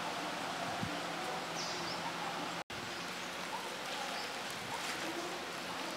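Steady outdoor background hiss with a few faint bird chirps. The sound cuts out for an instant about halfway through.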